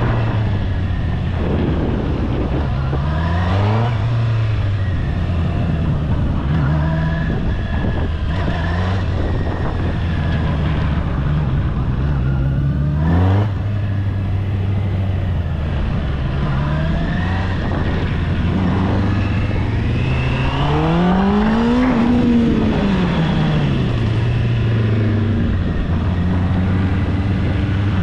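Honda CB650R's inline-four engine heard from the saddle, its revs rising and falling repeatedly under the throttle at low speed. The biggest rev rise and drop comes about three-quarters of the way through.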